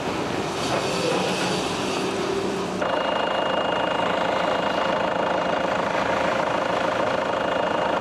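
Outdoor background noise, then, about three seconds in, a JCB backhoe loader's diesel engine running steadily as it clears snow, with a thin steady high whine over it.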